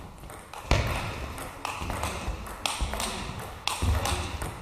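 Table tennis rally: the ball clicking back and forth off the paddles and the table, about two hits a second, with a couple of heavier thuds about a second in and near the end.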